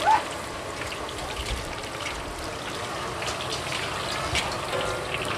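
Eggplant chunks deep-frying in a wok of hot oil, a steady sizzle. Over it come metal clinks and scrapes of a wire strainer and a ladle against the wok, with a sharp scrape right at the start as the loudest sound.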